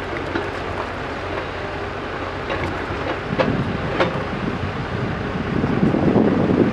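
JCB backhoe loader's diesel engine running steadily, with two sharp metallic clanks a few seconds in. The sound grows louder and rougher near the end.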